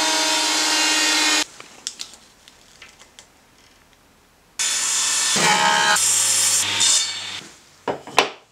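Ryobi planer thicknesser running and cutting a board, stopping abruptly about a second and a half in. A second loud power-tool cut follows for about three seconds. Near the end come a few sharp wooden clacks as cut strips are set on a stack.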